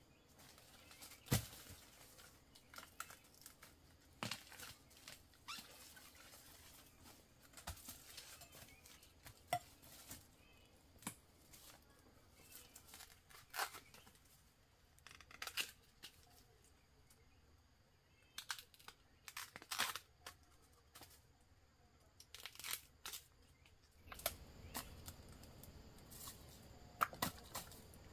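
Faint, irregular tearing and crackling with scattered sharp clicks, like dry material being torn and handled. The background hiss gets louder near the end.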